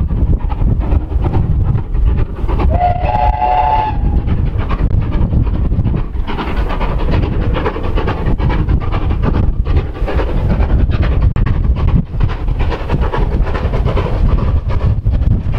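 GWR 5700 class pannier tank steam locomotive working uphill toward the listener, its exhaust beating heavily over a deep rumble. About three seconds in, its steam whistle gives one short blast of a bit over a second.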